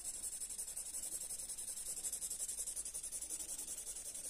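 Yellow felt-tip marker rubbing on paper in quick, even back-and-forth strokes as a stripe is filled in: a faint, high scratchy hiss pulsing several strokes a second.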